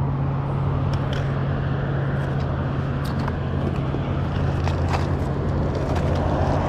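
A steady low motor-like hum over a wash of outdoor noise, with a few light clicks and knocks as a magnet-fishing magnet and its rope are hauled up onto a stone seawall.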